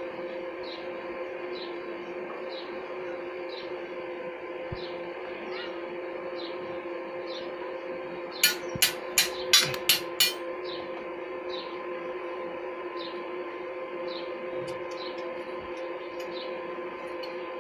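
Six quick hammer strikes on steel about halfway through, over a steady hum and a faint chirp repeating about twice a second.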